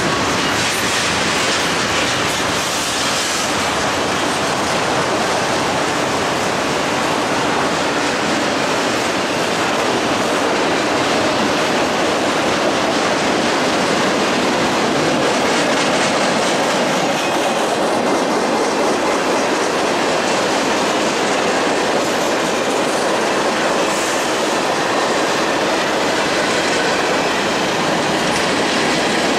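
Cars of a long mixed freight train rolling past, with steel wheels running steadily over the rails.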